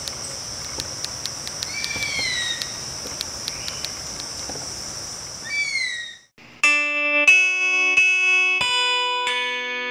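Typewriter key clicks over an outdoor ambience with a steady high-pitched drone and two gliding bird calls. About six seconds in this cuts out and plucked guitar music begins, the loudest sound.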